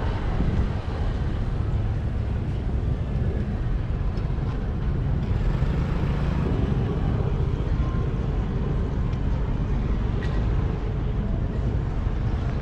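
A steady low rumble of outdoor background noise, even in level throughout, with no distinct events.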